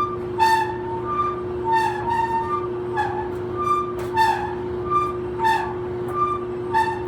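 Old clothes dryer running with a steady hum and a repeating high-pitched squeak, about three squeaks every two seconds, alternating between two notes.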